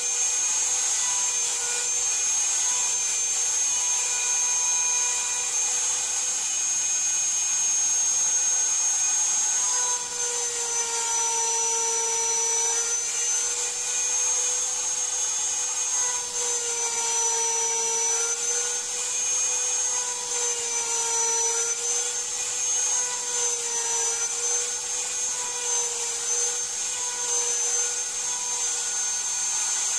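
Router spindle on an MPCNC running with a steady high whine as its 1/4-inch end mill cuts a pocket in Iroko hardwood. From about ten seconds in, its pitch dips briefly several times as the cutter takes load.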